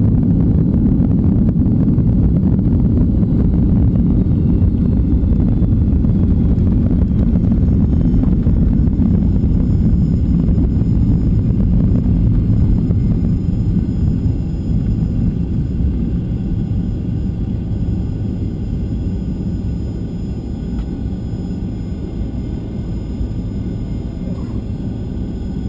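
Jet airliner cabin noise during the landing rollout: a loud, low, steady rumble of engines and wheels on the runway, easing off gradually about halfway through as the aircraft slows.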